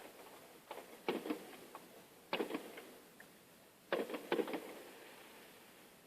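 Fireworks going off in quick clusters of sharp bangs and crackles: three groups, about a second in, near the middle and just past halfway, each of several reports in quick succession.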